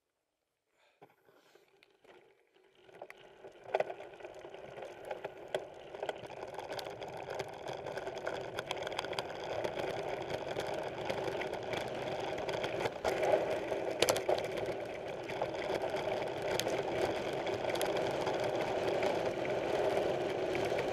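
Mountain bike rolling over a dirt trail: steady tyre and drivetrain noise with the bike rattling and occasional sharp knocks over bumps. It starts from near silence, picks up after about three seconds and gets gradually louder as the bike gathers speed.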